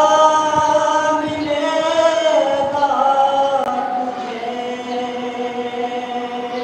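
A man's voice chanting a slow mourning recitation through a microphone, one long drawn-out line whose held notes step down in pitch twice and slowly fade.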